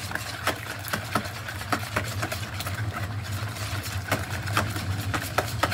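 Stainless steel wire whisk beating an egg and cream custard mix in a plastic bowl, its wires clicking and tapping against the bowl in quick, irregular strokes, about two to three a second. A steady low hum runs underneath.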